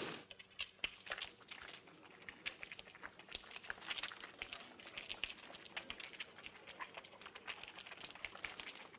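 Footsteps of a large crowd walking on rough ground: many faint, irregular, overlapping steps.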